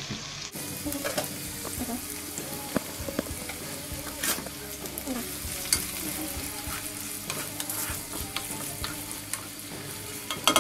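Chopped red onions sizzling in hot oil in a kadhai, starting about half a second in. A wooden spatula stirs them, with frequent scrapes and taps against the pan.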